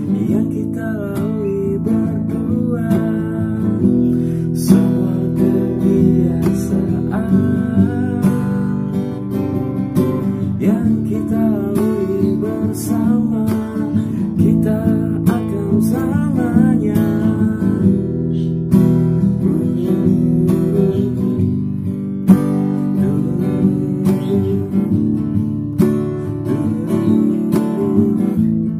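A man singing in Indonesian while strumming an acoustic guitar.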